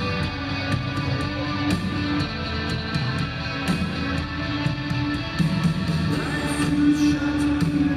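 Live rock band playing at full volume, with guitar prominent and steady sharp hits running through.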